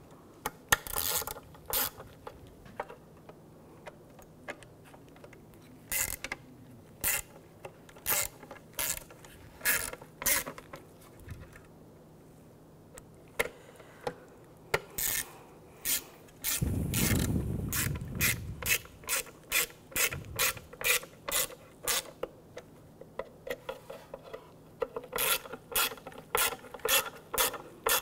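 Hand ratchet clicking in short runs as T15 Torx screws are driven into the ignition control module on a coil pack, the clicks coming quickly at times. A brief rumble of handling comes a little past the middle.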